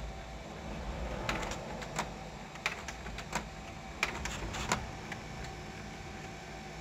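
HP LaserJet P1102 laser printer running a print attempt: a steady motor hum with a string of sharp mechanical clicks from about a second in to nearly five seconds in. The pickup mechanism works but fails to pull paper from the tray, the misfeed that ends in a load-tray error.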